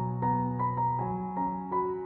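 Background piano music: a slow melody of single notes, each starting cleanly and fading, over held lower notes.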